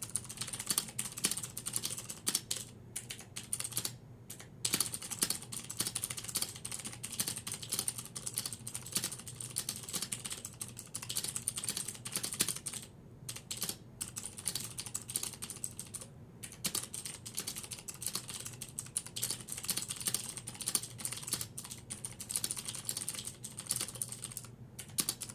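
Continuous typing on a luggable, laptop-style keyboard with clicky Cherry MX Blue switches: rapid, irregular keystroke clicks with a few brief pauses.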